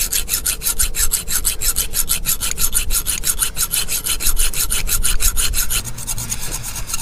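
Hacksaw cutting through a metal side-step mounting bracket in quick, even back-and-forth strokes, trimming off length so that the bracket will fit its mounting hole.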